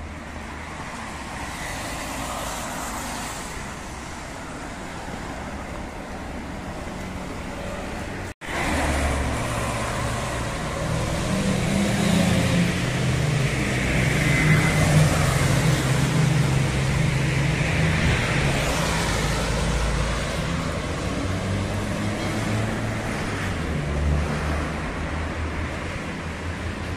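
Road traffic on a wet street: cars driving by, with a louder vehicle engine passing in the middle that builds and then fades. The sound cuts out for a split second about a third of the way in.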